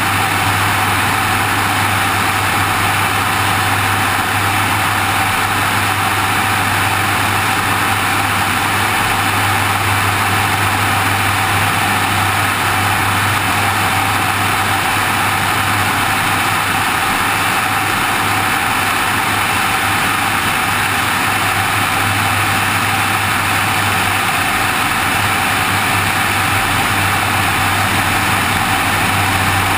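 Steady drone of a light aircraft's engine and propeller in cruise, mixed with rushing airflow over a wing-mounted camera: a constant low hum under a broad wind hiss, unchanging throughout.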